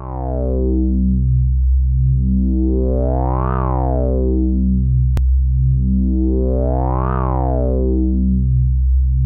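Electronic synthesizer music. A steady low bass drone runs under a fast repeating pattern of notes, which brightens and dulls again in two slow swells, the brightest points about a third and three quarters of the way through. A single click comes just past the middle.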